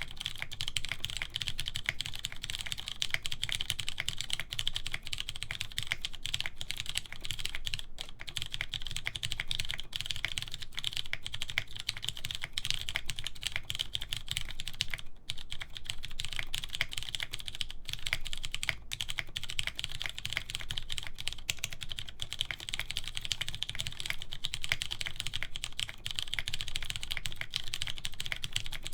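Continuous fast typing on a mechanical keyboard with lubed Cherry MX Clear tactile switches in an aluminum plate and PBT keycaps: a steady stream of keystroke clacks with no pauses longer than a moment.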